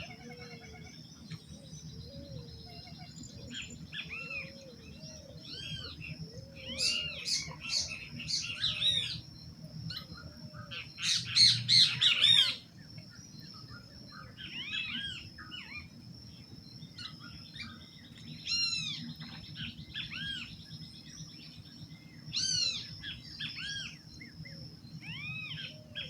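Dawn chorus of several wild birds calling with repeated short chirps and whistled notes, busiest about halfway through. A steady high thin whine and a low rumble run underneath.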